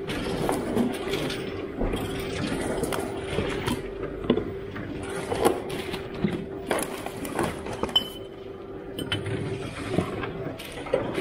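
Black plastic bin bags rustling and plastic drink bottles crinkling and clicking as they are pulled out of the bags by hand, in irregular short bursts. A steady machine hum runs underneath.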